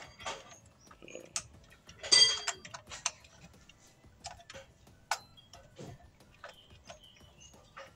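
Irregular metal clicks and clinks of a 24 mm socket on an extension bar and flexible extension being fitted to the oil filter housing cap and turned, with one louder ringing clink about two seconds in.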